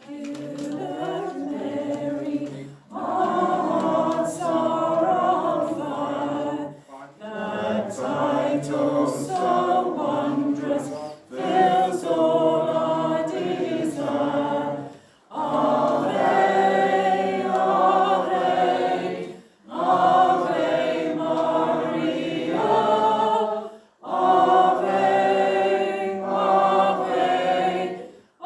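A choir singing a hymn, in phrases of about four seconds with brief pauses between them.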